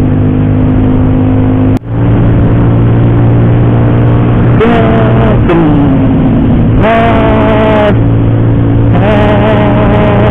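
Single-cylinder engine of a Honda PCX scooter with an aftermarket racing exhaust, running under way at a steady, even note as the scooter speeds up. The sound drops out sharply for an instant just under two seconds in, and higher tones come and go near the middle and end.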